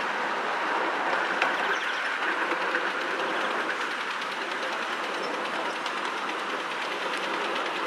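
A 5-inch gauge miniature steam train running along its track, its wheels giving a steady run of rapid clicks over the rail joints. One sharper click comes about a second and a half in.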